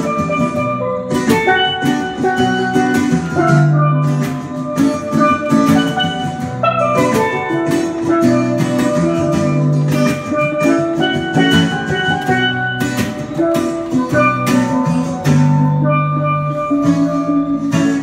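Live instrumental music: melodic steelpan notes over strummed acoustic guitar, with a steady percussive beat.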